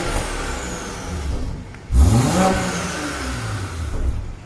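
BMW X6 xDrive40i's turbocharged 3.0-litre inline-six being revved through an aftermarket downpipe and exhaust with its Nova Racing cut-out valve closed. A rev dies away at the start, then a sharp blip about two seconds in climbs and falls back.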